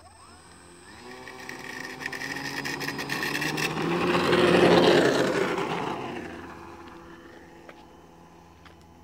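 Electric motor and 10x6 propeller of a foam RC Nieuport 11 biplane run up on a 3S battery, the whine rising in pitch at the start of the take-off run. It grows louder as the model rolls close past, loudest about halfway, then fades as it climbs away.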